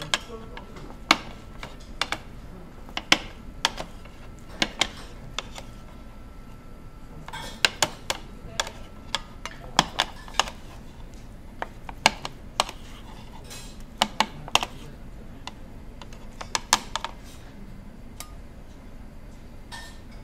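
Cleaver blade knocking down onto a plate as a cheese rolled omelet is sliced into pieces: a sharp tap roughly every second, sometimes two in quick succession, at an uneven pace.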